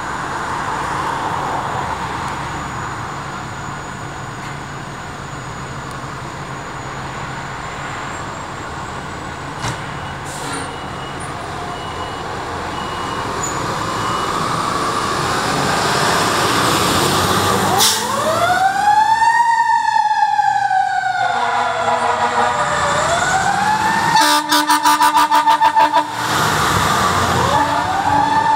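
Fire trucks rolling out of the station, their diesel engines running. About two-thirds of the way in a siren starts: it winds up quickly and falls slowly, again and again, with a burst of rapid, pulsing air-horn blasts between the wails.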